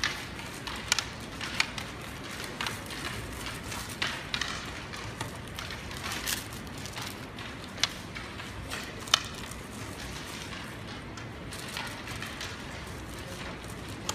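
Go stones clicking down on wooden boards from many games at once: irregular sharp clicks, a few louder than the rest, over the steady noise of a crowded hall.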